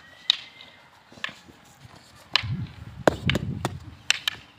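Sharp slaps and knocks of trainees grappling on foam floor mats, with a low thudding stretch in the middle as bodies go down onto the mats.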